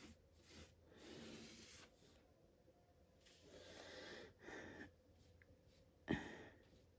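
Faint swishing of a bristle paintbrush stroked over a surface covered in diamond-painting resin drills while varnish is applied, a few separate strokes, with one sharp knock about six seconds in.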